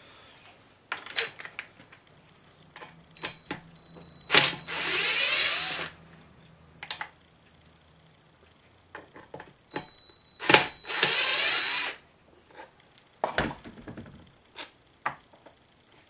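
Cordless drill-driver with a Torx bit running twice, for about a second each time, backing out the screws of a loose bracket on a small two-stroke engine; each run starts with a sharp click, and short clicks and knocks of tool and screw handling fall between.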